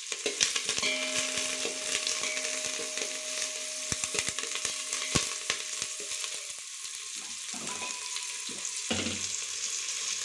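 Dried red chillies, sliced onion and curry leaves sizzling in hot oil in a steel pot, stirred with a perforated steel ladle that clicks and scrapes against the pot.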